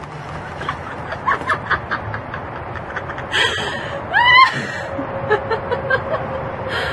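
A young woman laughing hard, in quick breathy bursts that rise to a couple of high-pitched squeals about three and four seconds in.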